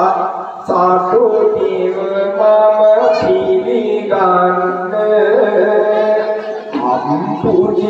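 A man singing Sinhala kavi (traditional verse) in long, drawn-out phrases, holding each note with a wavering, ornamented pitch and gliding between notes.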